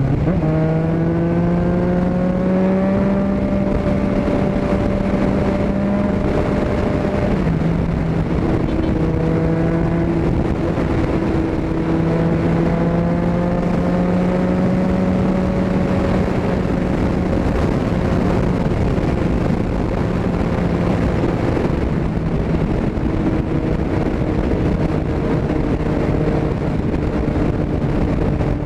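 Yamaha MT-09 three-cylinder engine through an Akrapovic exhaust, accelerating: its pitch climbs over the first few seconds, drops with an upshift about seven seconds in, then holds a steady cruise with slow rises and falls. Wind rush on the helmet microphone runs underneath.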